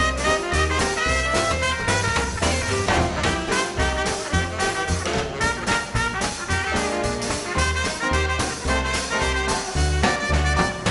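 Small swing band playing an instrumental number in 1930s style: horns (trumpet and saxophone) carrying the tune over piano, drums and bass notes on every beat.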